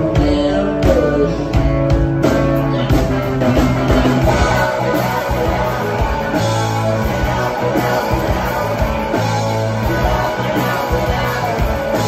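Live rock band playing loud: electric guitars over bass and drums.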